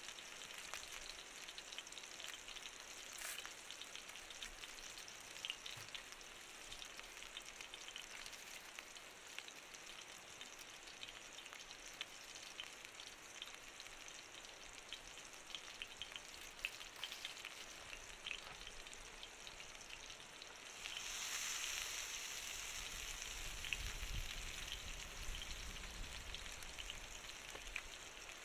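Food frying in a pan over a wood fire: a steady sizzle with small crackles and pops. The sizzle swells louder for several seconds about three-quarters of the way through.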